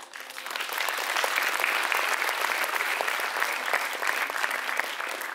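Audience applauding: dense clapping from many hands that breaks out suddenly, builds over the first second and then holds steady.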